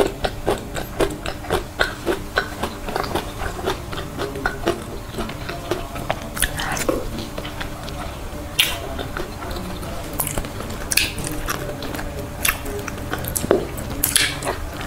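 A person chewing soft durian flesh, with many short wet clicks of the mouth and a few louder ones now and then.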